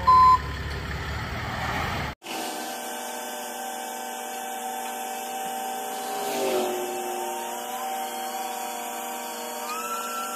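A tow truck's reversing beeper gives its last beep over the truck's low engine idle. After a cut, the rollback's winch whines steadily with several tones as it pulls a Chevy S10 pickup up onto the tilted bed; the pitch dips about two-thirds through and climbs again near the end.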